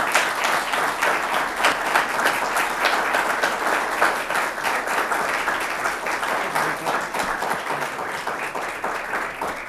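Audience applauding: many hands clapping in a dense, steady patter that thins slightly toward the end.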